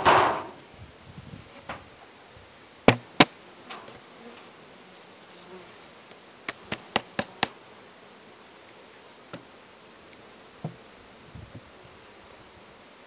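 Honeybees buzzing over an open hive, with sharp knocks of wooden hive parts being handled: a brief scraping rustle at the very start, two loud knocks about three seconds in, and a quick run of five lighter knocks a few seconds later.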